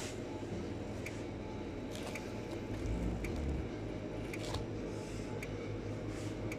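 Hands squeezing and pulling apart the puffy crust of a baked Neapolitan-style pizza, with soft handling noises over a steady low hum and faint ticks about once a second.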